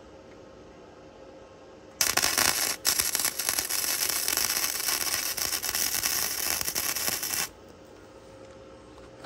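Electric arc welding on a metal hinge tab: a dense, steady crackle that starts about two seconds in, breaks off for an instant just before the three-second mark, and stops abruptly about five seconds later.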